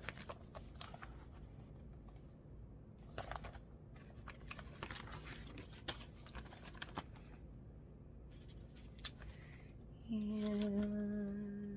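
Magazine pages being handled and turned: scattered light rustles, scratches and small clicks of paper. Near the end a voice holds a long drawn-out "and".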